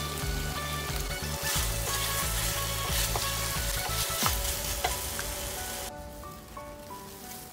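Chicken wing pieces sizzling in oil in a stainless steel pot while being stirred with a spatula, with a few sharp knocks of the spatula against the pot; the sizzle stops about six seconds in. Background music plays throughout.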